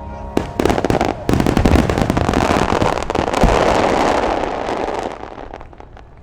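Fireworks finale barrage: a quick volley of shell bursts, then a dense wash of crackling that swells and then fades away over the last second or two. Music stops about half a second in.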